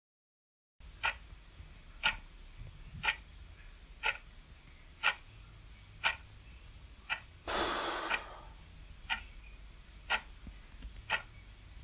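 Clock ticking once a second, starting just under a second in, with one sighing exhale about halfway through.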